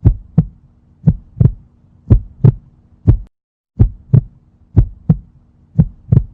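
Heartbeat sound effect: pairs of low thumps, lub-dub, about once a second over a faint low hum, dropping out briefly about halfway through.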